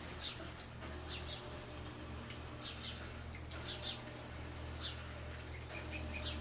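Short, high-pitched animal chirps, often in quick pairs, about once a second, over a steady low hum.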